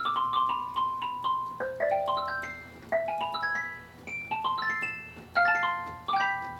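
Gulbransen Rialto II electronic organ's xylophone voice played on the keys: short struck notes that die away quickly, a descending run at first, then repeated rising arpeggios.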